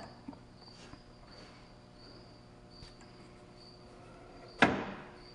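Wooden weight-driven impulse engine sculpture (Clayton Boyer's Steampunk Engine design) running with its flywheel spinning: light ticks, then a single loud wooden clack about four and a half seconds in. Under it a faint high chirp repeats about every 0.7 s.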